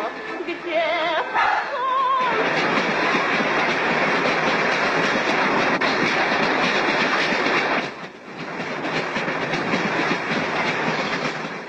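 A train running on the rails, a steady rattling rumble. A melody with a wavering tone ends about two seconds in. The noise dips briefly about eight seconds in.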